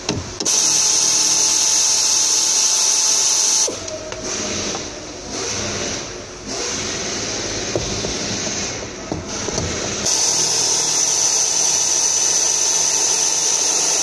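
A power tool runs steadily in two long stretches, about three seconds just after the start and four seconds near the end, with a high, even whine. Quieter clatter lies between them.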